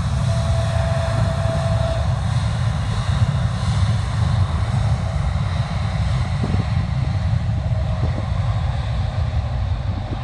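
Boeing 787 Dreamliner's jet engines at takeoff power during its takeoff roll: a steady, loud, deep rumble with a hiss on top, and a faint whine that fades out about two seconds in.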